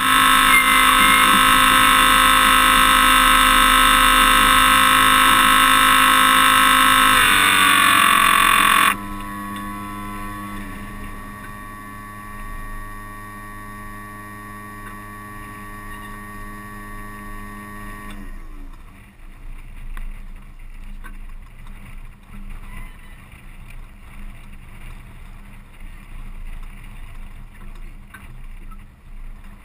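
Toyota Tundra truck engine running at high, steady revs, the pitch falling about seven seconds in and the level dropping sharply about nine seconds in. It keeps running lower until its tones wind down and fade around eighteen seconds, leaving quieter rough noise with scattered knocks.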